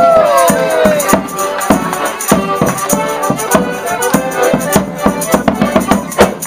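A Morris band playing a traditional dance tune on melodeon and other squeezeboxes, a drum beating out a steady beat and a tambourine jingling along.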